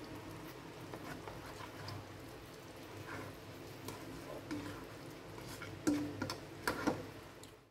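Spatula tapping and scraping in a wok of sauce: a scatter of small clicks, the loudest few about six to seven seconds in, over a low steady hum.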